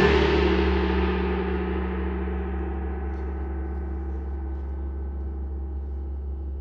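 Concert band ringing out after a loud peak. A struck metal percussion instrument, gong-like, shimmers and slowly dies away over several seconds above a steady, held low chord.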